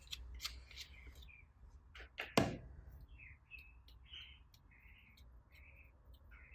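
Slime being mixed and squished by hand: scattered wet clicks and pops with short squeaky chirps, and one louder squelch about two and a half seconds in.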